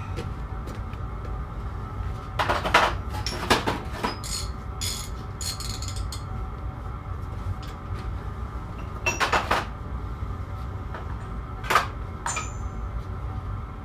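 Metal hand tools and steel parts clanking and clinking: a handful of separate knocks, some ringing briefly, over a steady low hum.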